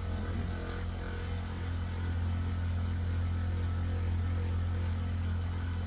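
Electric massager running with a steady low buzz, a little louder from about two seconds in.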